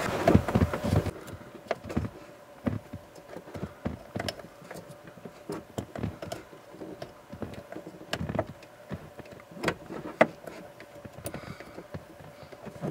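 Irregular light clicks, taps and knocks of hands handling the blower motor's wiring lead and plastic clips under a car's dashboard.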